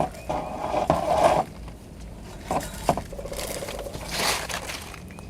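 Things being handled and moved about: a scrape, two sharp clicks, a short buzzing rasp and a swish.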